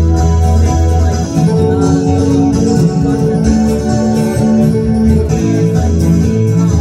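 Live country music from acoustic guitar and electronic keyboard playing together, with sustained keyboard chords over a steady bass line.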